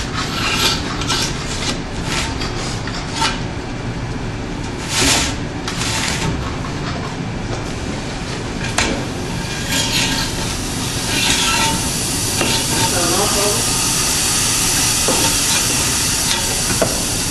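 Knife slicing through polyester screen-printing mesh along the edge of a frame, as a series of short scratchy strokes, turning into a steadier hiss in the last third.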